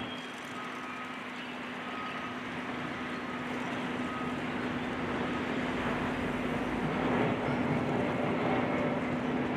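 Heavy diesel demolition machinery, likely the high-reach excavator, running steadily with a constant hum under a noisy wash of engine and site sound. It grows slightly louder about halfway through.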